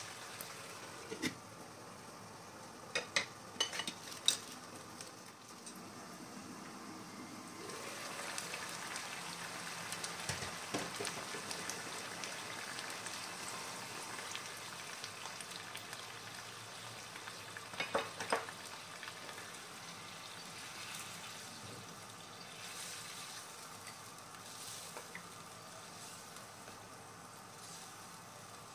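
Chicken curry bubbling and sizzling in a non-stick wok, with a few sharp knocks of a wooden spatula against the pan in the first seconds and again about two-thirds through. Around the middle the sound grows louder and fuller as coconut milk is poured into the simmering curry.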